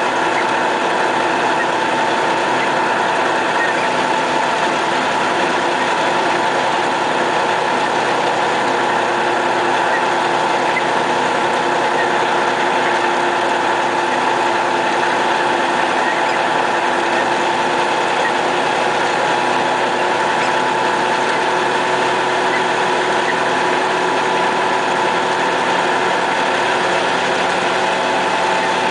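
MAZ snowplough truck's diesel engine running steadily under way, heard from inside the cab, with a steady whine over it.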